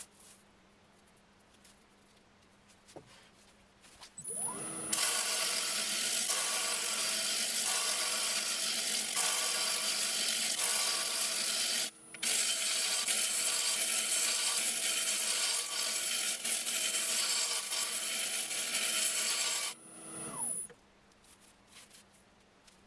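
Wood lathe spinning a spalted ash log while a turning tool cuts into it, making a loud, rough, rasping cutting sound. The lathe whines up in speed about four seconds in. The cut breaks off briefly about halfway through, then stops near the end as the lathe whines back down.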